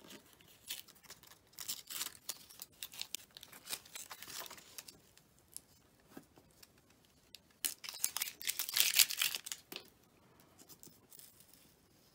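Sticky masking paper being peeled off cardstock: irregular papery peeling and rustling in short rasps, with the loudest, longest stretch of peeling about eight to ten seconds in.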